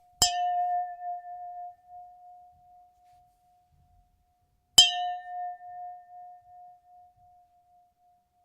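A glass struck twice, about four and a half seconds apart. Each hit gives a sharp tap and a clear, fairly low ringing note with a fainter higher tone above it, fading out over about three seconds.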